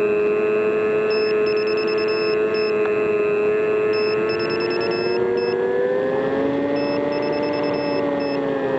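Radio-controlled model plane's motor running steadily at high speed, its pitch rising a little past the middle and easing back near the end. Faint high electronic beeps sound in short repeated groups over it.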